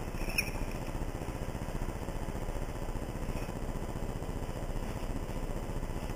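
Steady low rumble of background noise on a recorded phone call, with a faint click about half a second in.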